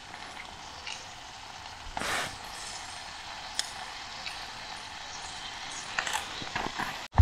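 Quiet handling sounds of a plastic shaker bottle: small clicks of its flip cap being opened and snapped shut, a brief rustle about two seconds in, and faint ticks as white powder is shaken into a cooking pot.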